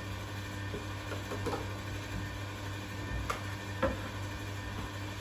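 Quiet room tone with a steady low hum, and a few faint knocks and taps as a child handles a toy and a plate, the clearest a little before four seconds in.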